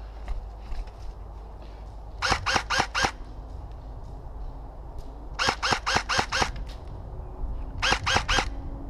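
Airsoft electric rifle firing three short strings of rapid shots, four to six shots each at about five a second, with pauses between the strings.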